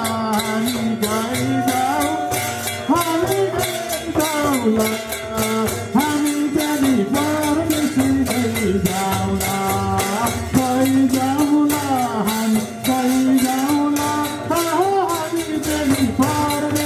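A Nepali Bhailo folk song: a man sings a gliding, ornamented melody into a microphone while madal hand drums keep a steady beat.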